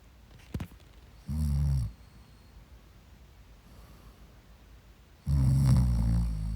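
A sleeping person snoring: a short low snore about a second in, and a longer, louder one near the end.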